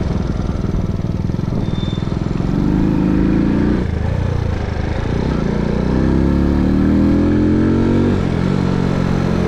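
Mondial SFC 50 moped's 50 cc engine under way, accelerating twice: its pitch rises for about a second, drops sharply, then rises again for about two seconds before dropping and settling to a steady run.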